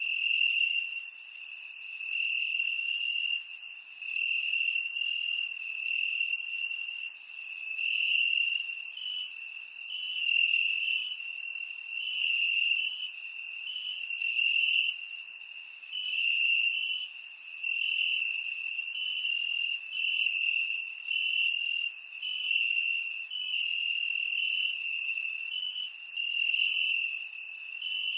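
Crickets chirping in a continuous high-pitched trill that swells and fades every second or two.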